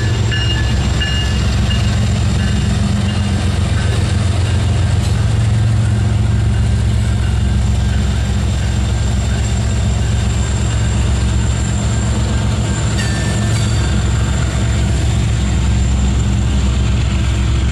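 A BNSF SD70MAC diesel-electric locomotive running past, then coal hopper cars rolling by with a steady, loud rumble of steel wheels on rail. A low hum carries on throughout.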